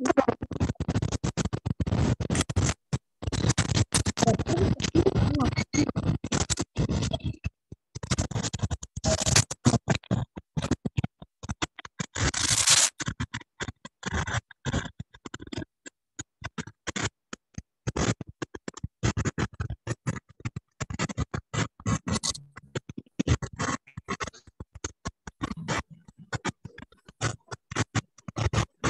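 Choppy, crackling noise breaking in and out over a video call: an audio disturbance on the call line, with a brief burst of hiss about twelve seconds in.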